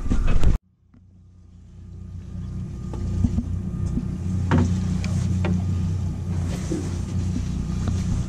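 Boat's outboard engine idling, a steady low hum that fades up after a sudden cut about half a second in, with a few light clicks over it.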